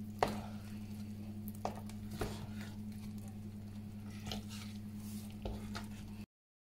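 A spoon stirring and folding thick cake batter in a mixing bowl: soft squelching with a handful of sharp knocks of the spoon against the bowl, over a steady low hum. The sound cuts off abruptly near the end.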